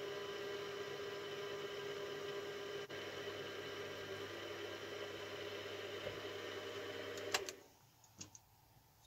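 Mini milling machine's spindle motor running steadily with a fixed-pitch hum while a small drill bit bores a hole in a metal slide bar. About seven seconds in there is a sharp click and the hum dies away quickly as the machine is switched off, followed by a few faint light clicks.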